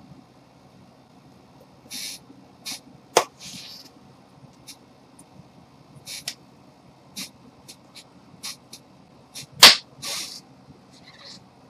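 Hand noises: an irregular run of short swishing hisses and a few sharp claps, the loudest clap about two-thirds of the way through.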